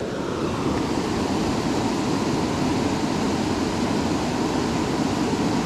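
Steady rushing of a rocky mountain trout stream, water running and riffling over stones.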